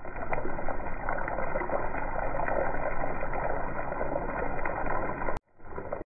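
Samosas deep-frying in hot oil in an iron kadai: a steady sizzling hiss with small crackles. It cuts off abruptly about five and a half seconds in, then comes back briefly and stops.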